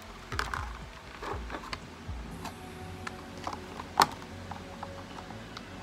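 Small clicks and knocks of hands handling the plastic parts of a 1/16-scale RC truck, with one sharp click about four seconds in.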